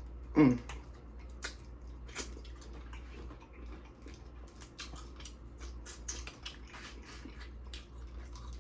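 Close-miked eating of Dungeness crab: wet chewing and mouth smacks with scattered small clicks.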